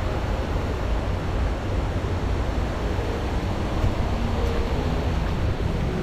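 Shallow mountain stream running over rocks: a steady rushing of water with a heavy low rumble.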